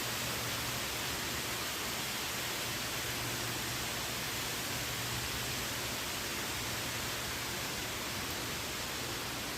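Steady, even hiss of background noise with a faint low hum underneath; nothing else happens.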